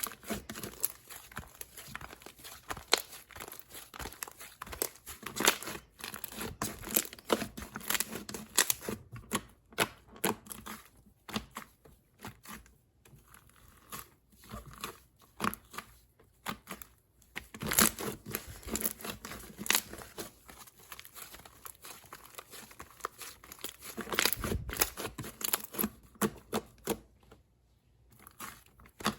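Foam ball slime being squeezed and kneaded by hand, the foam beads popping and crackling in quick, irregular clusters of clicks, with short pauses about halfway through and near the end.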